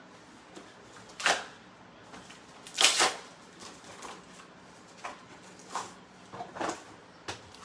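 Trading-card supplies and packaging being handled: a scattering of short rustles and clicks, the loudest about three seconds in.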